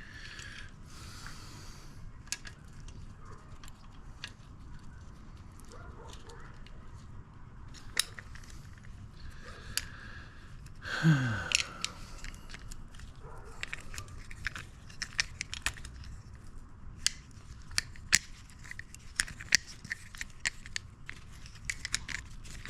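Hand tools and bicycle parts being handled: scattered small metallic clicks and taps that come thicker and faster in the second half, with one short falling sound about halfway through.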